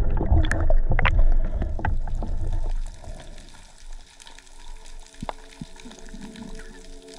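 Water churning and bubbles rushing past an underwater camera housing as a spearfisher dives from the surface, with scattered clicks. About three seconds in it drops suddenly to a much quieter underwater hush with faint steady tones.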